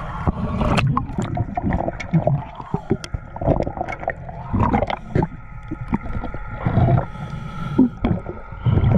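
Sea water sloshing and gurgling, heard through a waterproof action-camera housing as it dips in and out of the water at a boat's swim ladder. Scattered sharp knocks and clicks run through it.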